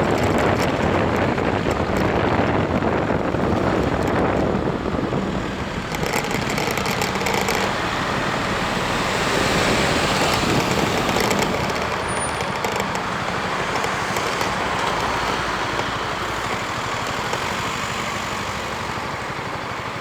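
Ride on a motor scooter heard through an on-board action camera: steady wind and road noise with the scooter's engine running under it, rising and falling a little.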